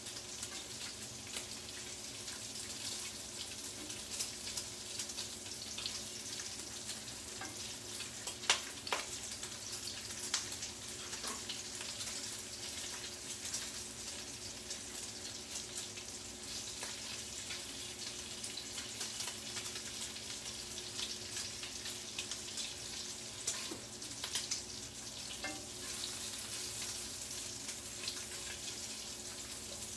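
Greasy bacon frying in a skillet: a steady sizzle dotted with crackles and spattering pops, one sharper pop about eight seconds in.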